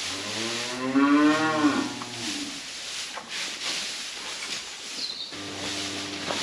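Cattle mooing: one long moo of about two seconds that rises and then falls in pitch, and a second, lower, steadier moo starting near the end.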